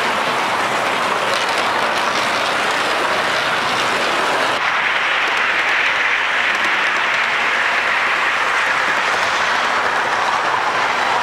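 Toy trains running on a layout's metal track: a steady rolling rumble and hiss of wheels and motors. The sound turns brighter about four and a half seconds in.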